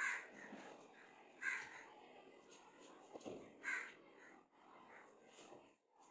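Faint bird calls outside: three short calls about one and a half to two seconds apart, with weaker ones between.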